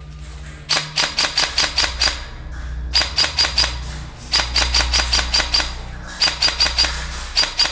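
Airsoft rifle fired in five quick strings of shots, about five a second, each shot a sharp click, inside a corrugated metal tunnel, over a low steady hum.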